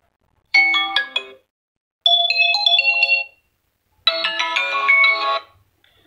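A Vivo Y01 smartphone playing previews of its built-in ringtones as each one is tapped in the list: three short melodic chime snippets one after another, each cut off after a second or so.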